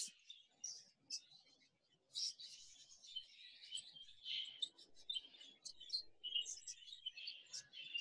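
Faint chirping and chattering of a flock of exhibition budgerigars: a scatter of short, high chirps that thickens from about two seconds in.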